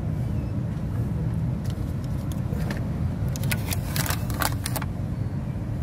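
A car's number plate being handled by hand: a quick run of clicks and rattles from about three and a half to five seconds in, over a steady low rumble.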